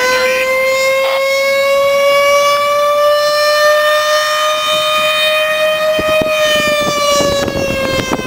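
Mechanical fire siren winding slowly up in pitch to its peak, growling there, and starting to wind down about six seconds in.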